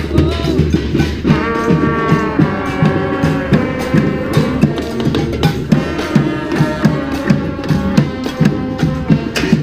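Street brass band playing an upbeat number: horns sounding held chords over a steady drum beat.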